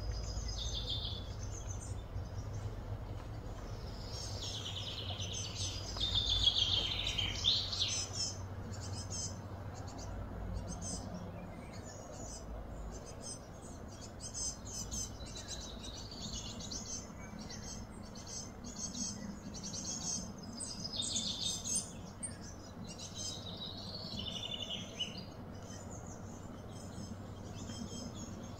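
Birds chirping and singing outdoors, many short overlapping calls throughout, with the loudest warbling phrase about six seconds in, over a steady low background hum.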